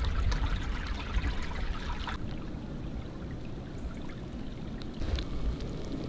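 Small creek running steadily, a continuous trickling rush of water.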